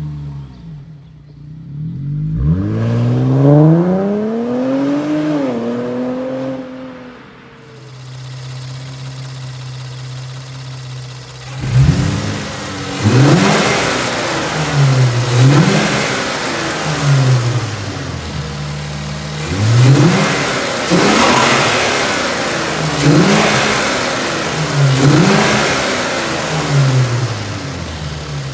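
Infiniti Q50's 3.0-litre twin-turbo V6 with its mufflers deleted, revved while standing: a long rev rises and falls in the first few seconds, it settles to idle, then from about twelve seconds in it is blipped again and again, each rev climbing sharply and dropping back.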